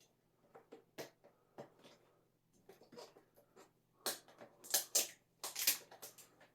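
Packing tape being peeled off a cardboard box: light scratching and picking at the tape, then several short tearing pulls in the second half.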